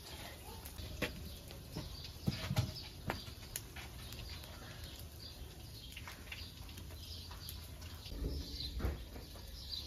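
Birds chirping faintly in the background, broken by a few sharp knocks and clatters, the loudest about two and a half seconds in.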